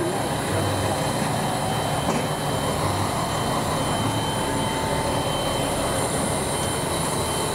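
Steady hiss and rumble in the cab of a live steam locomotive standing in steam, with faint steady high-pitched whines over it.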